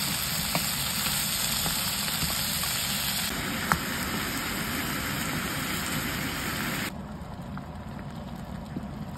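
Diced potatoes, carrots and then meat sizzling in a frying pan, with a few light clicks of a wooden spatula stirring. About seven seconds in the sizzle drops to a quieter hiss.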